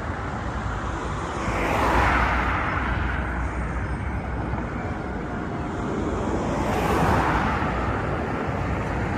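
Street traffic with a steady low rumble. Two vehicles pass by, one about two seconds in and another about seven seconds in, each rising and fading.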